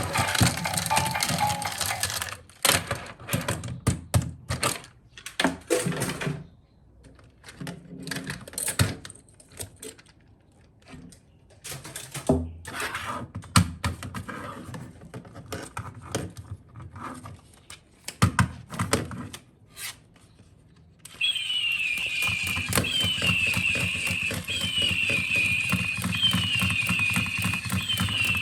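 PAW Patrol plastic toy pieces being handled and fitted together: a run of separate clicks, snaps and knocks. Near the end, a toy's electronic sound starts: a steady hum with a falling chirp that repeats about every second and a half.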